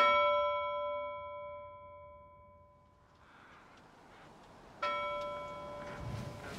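Two struck bell-like chime notes, each ringing out and slowly fading, the first at the start and the second about five seconds in. A soft hiss rises beneath them in the second half.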